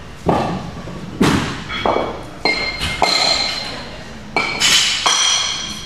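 Metal weightlifting plates and barbell hardware clanking: about seven sharp knocks at uneven intervals, each followed by a brief metallic ringing.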